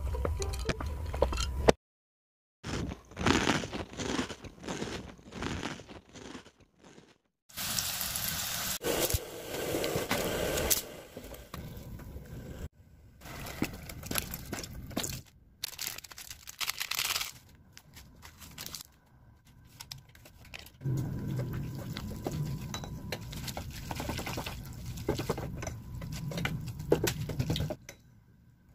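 Instant noodles being cooked in a pot, in a series of short clips cut off abruptly. Crackling and rustling, liquid poured over the noodles, then a wooden spoon scraping and stirring through the creamy noodles.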